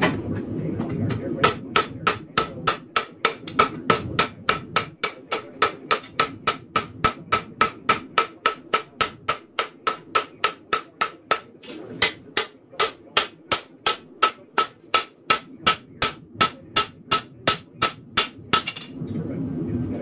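Hand hammer forging a hot 1084 high-carbon steel knife blank on an anvil, striking in a steady rhythm of about three to four blows a second. Each blow has a bright metallic ring. The blows begin about a second and a half in and stop near the end.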